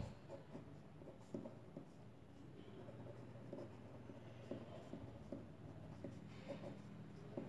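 Pen writing on a notebook page: faint, short scratching strokes as chemical structures are drawn.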